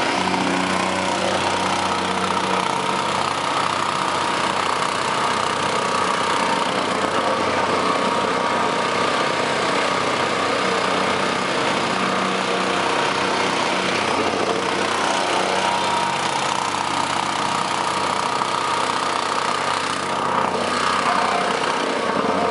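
Steady engine noise from asphalt-paving machinery: a small petrol vibratory plate compactor running continuously as it packs fresh asphalt, together with the engine of an asphalt paver.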